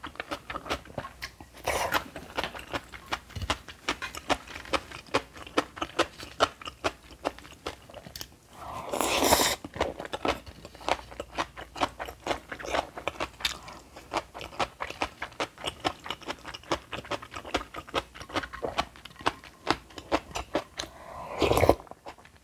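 Close-miked crunchy chewing of bibimbap made with crisp aged-cucumber (nogak) salad: many quick crunches a second, with a louder, longer sound about nine seconds in and again near the end.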